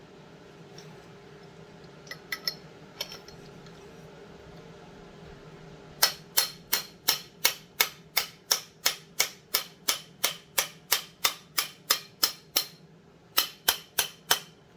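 Hammer tapping a bearing punch to drive a main bearing onto a chainsaw crankshaft: a few light taps, then a steady run of sharp strikes about three a second, a short pause, and a few more near the end.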